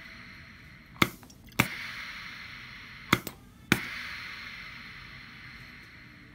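Hibar 4F2C piston filling pump cycling twice. Each stroke gives two sharp clicks about half a second apart, followed by a fading hiss. Each stroke dispenses roughly 3 ml of water while the stroke length is being set.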